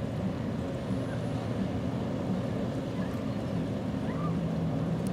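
Ship and tug diesel engines droning low and steady across the water.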